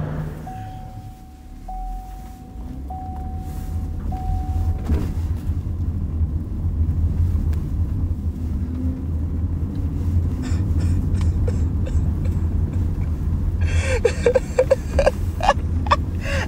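A steady electronic beep sounds four times in a row, then the low, steady rumble of a car's engine and tyres on the road, heard muffled from inside its closed trunk. Near the end, pitched sounds that rise and fall come in over the rumble.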